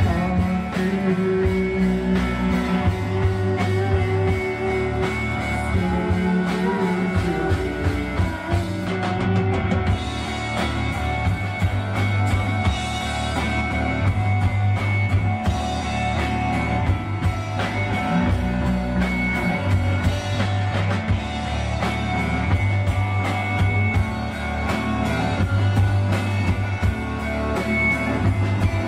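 Live psychedelic rock band playing a song, with distorted electric guitar, a drum kit keeping a steady beat, and a heavy bass line.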